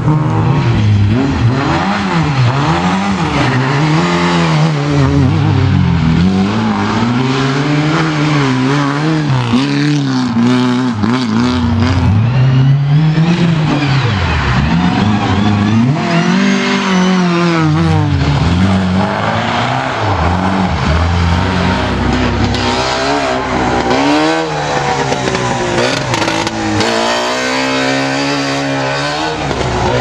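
Rally car engines revving hard, rising and falling in pitch again and again as the cars accelerate, shift and brake while racing past on the stage.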